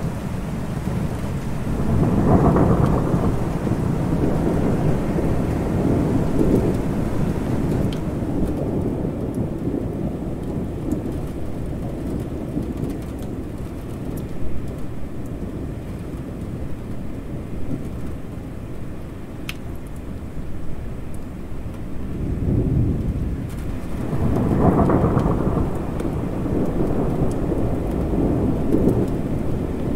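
Steady rain with rolling thunder. A long low rumble of thunder swells a couple of seconds in and fades over several seconds, and another builds up in the last third and rolls on through the end.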